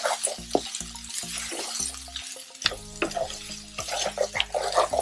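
A spatula stirring and scraping sliced spiny gourd and onion around a non-stick frying pan, in a quick run of short strokes over the hiss of the vegetables frying.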